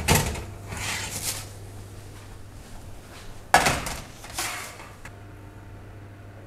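A metal baking tray of oven fries sliding out of the oven on its rack with a clatter and scrape, then set down with a second sharp clatter on a metal trivet about three and a half seconds in. Near the end a microwave oven starts its low steady hum.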